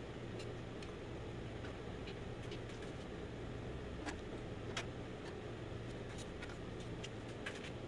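Scattered light clicks and taps of hand tools on metal as the timing cover of a Ford 5.0 V8 is pried loose, with two sharper clicks about four and five seconds in. A steady low hum runs underneath.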